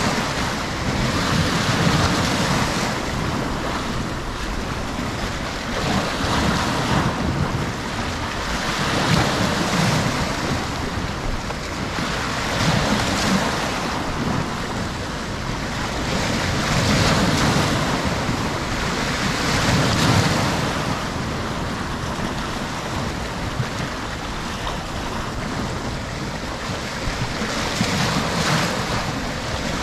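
Sea waves breaking and washing over shoreline rocks: a continuous rush of surf that swells into a fresh splash every few seconds.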